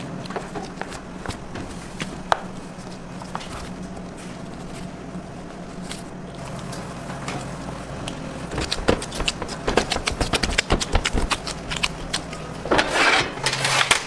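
Bakery work sounds over a low steady machine hum: scattered light knocks and clatter of handling on metal, growing busier after about eight seconds. Near the end comes a short, louder metallic scrape as a baking sheet pan slides into a rack.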